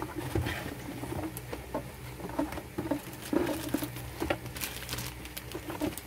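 Hands handling motherboard packaging: the cardboard box insert rustling and scraping, then clear plastic cable bags crinkling, in irregular small crackles and taps. A low steady hum runs underneath.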